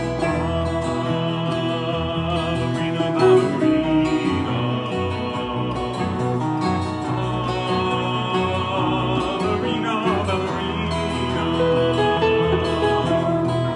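Live band playing a short instrumental ballet tune, with guitar under long held melody notes and a steady bass line.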